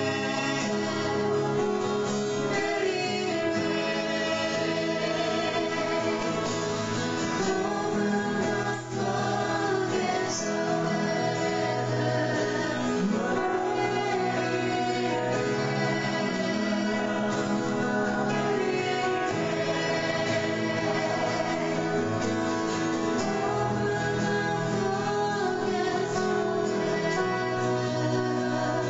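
Live worship song: voices singing a slow hymn-like melody over guitar and keyboard accompaniment, played by a small church band.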